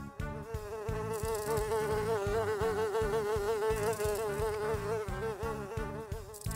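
Housefly buzzing: a steady drone whose pitch wavers slightly.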